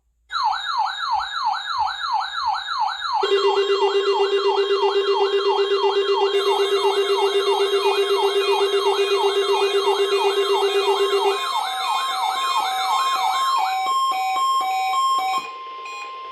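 Layered electronic alarm tones. A fast siren sweeps up and down about three times a second. About three seconds in, a steady low tone and several warbling higher tones join it. Near the end the siren stops, leaving a steady tone of about 1 kHz with beeping tones over it: a mock emergency-alert tone sequence.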